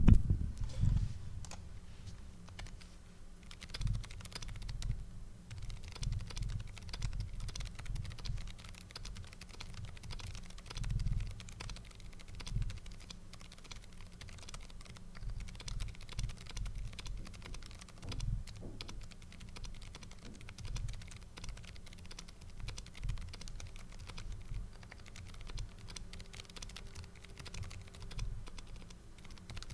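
Typing test on a keyboard fitted with Kailh Deep Sea Whale Fall tactile switches: a continuous, irregular run of keystrokes. The switches have a marked leaf sound meant to imitate Topre, and these tactile ones sound close to Topre switches.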